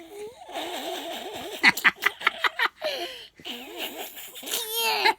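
A broken toy's voice giving a garbled, warbling cry whose pitch wobbles up and down, with a quick run of about five clicks about two seconds in.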